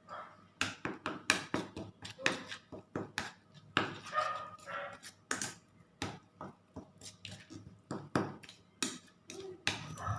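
A spoon clinking, knocking and scraping against a bowl in quick, irregular strokes: blended spice paste being stirred together with curry powder.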